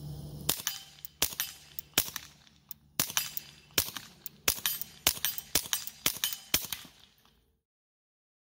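Suppressed .22 pistol firing supersonic rounds: about ten sharp shots in quick succession over some six seconds.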